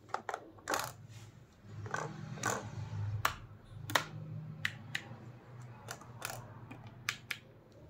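Irregular sharp plastic clicks and handling rustle from a FlySky FS-i6S radio control transmitter being handled: its gimbal sticks moved and its toggle switches flicked.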